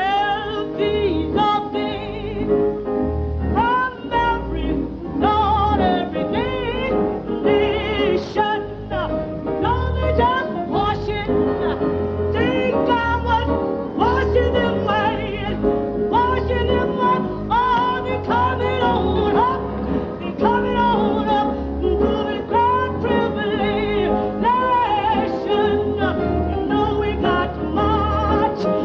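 A woman's contralto voice singing a gospel song at full power with a wide vibrato, over piano accompaniment whose low notes keep a steady beat.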